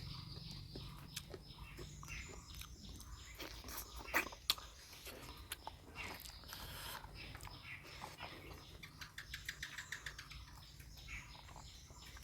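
Wet chewing and lip-smacking of someone eating spicy mutton curry by hand: a run of short clicks and smacks, with two louder ones about four seconds in and a quick string of clicks near the end.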